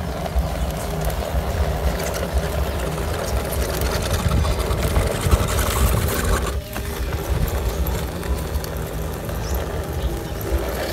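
Electric RC crawler truck's motor and gearbox running steadily as it drives, its tyres churning through mud and shallow water, with a brief dip about six and a half seconds in.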